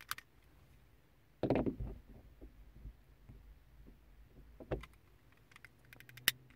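Hand-tool handling noises at a windshield's rear-view mirror mounting button. A sharp click at the start, a louder knock and rustle about a second and a half in, another knock near the end of the fifth second, then a run of small clicks with a sharp one near the end.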